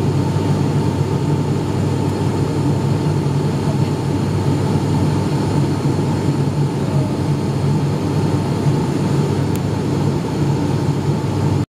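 Cabin noise of an ATR 72-500's Pratt & Whitney PW127 turboprop engines and propellers shortly after takeoff: a loud, steady drone with a low propeller hum. It cuts off abruptly at the very end.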